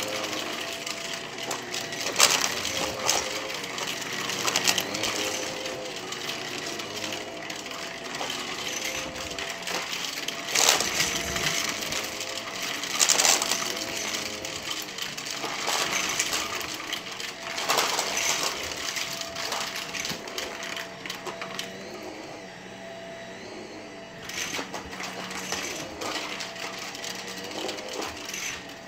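Shark Navigator upright vacuum running over thick carpet and sucking up loose coins, which clink and rattle sharply as they are pulled up through the machine, several times over a steady motor hum.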